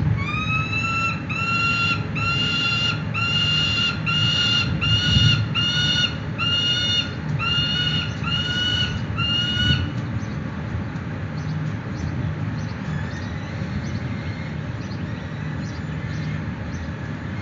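Young peregrine falcons calling: a run of about twenty short, harsh, pitched calls, about two a second, each rising at its start and then holding level. The calls stop about ten seconds in, leaving a steady low rumble.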